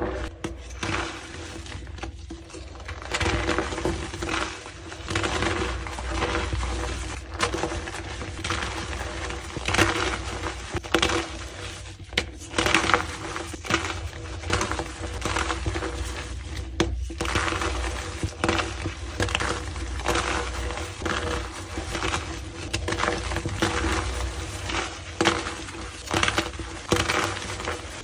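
Blocks of gym chalk being crushed and crumbled, a steady run of dense, irregular crunching and crackling with sharper cracks now and then.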